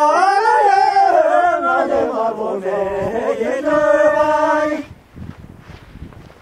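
Voices singing a long phrase of a Tibetan circle-dance song. The melody dips and slides down, then holds a steady note before breaking off about five seconds in.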